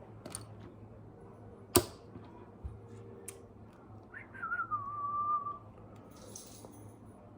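A sharp click of plastic parts about two seconds in, with a few lighter clicks around it, then a short whistled note that slides down and holds for just over a second.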